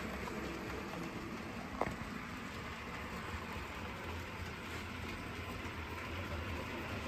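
OO gauge model diesel locomotive running on a model railway layout: a steady low hum, with one sharp click about two seconds in.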